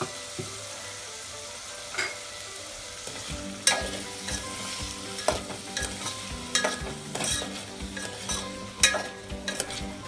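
Diced potatoes sizzling steadily as they fry in oil in an aluminium pot. From about four seconds in, a metal spoon stirs them, clinking and scraping against the pot at irregular intervals.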